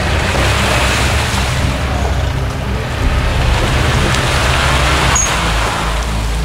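Off-road 4x4's engine running hard under load as it pushes through mud, a steady heavy low rumble.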